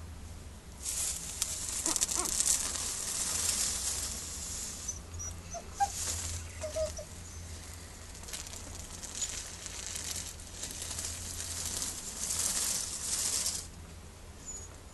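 Puppies rustling and shuffling about, with a few brief faint squeaks, over a steady low hum.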